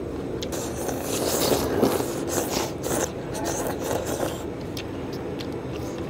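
Slurping of knife-cut noodles in soup, loudest about a second or two in, with a few light clicks of chopsticks against porcelain bowls near the end.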